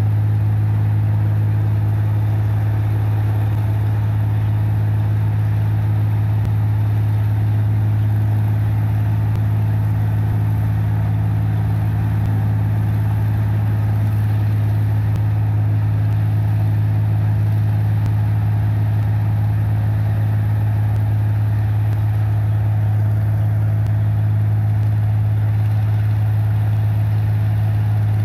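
A 1545 rice combine harvester running steadily at a constant working speed: a deep, even hum that does not change.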